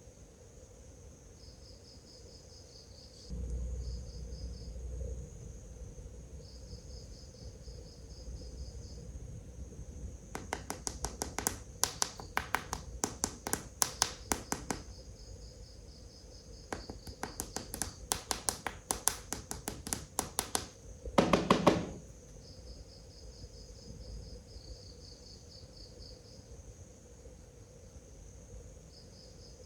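Crickets chirping in short repeated trills. Two long runs of rapid, loud clicking come in the middle, followed by a brief loud call-like burst at about twenty-one seconds.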